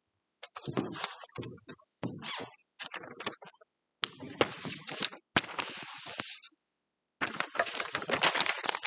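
Rustling and handling noise of papers and props being got ready at a music stand. It comes in irregular bursts with a few sharp clicks, and the densest rustle comes near the end.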